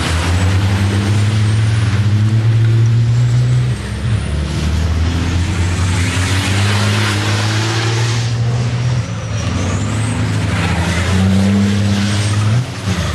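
Turbo-diesel engines of racing trucks pulling hard through a corner: a loud, low drone that drops off briefly three times as the drivers lift or change gear, with a rushing hiss in the middle.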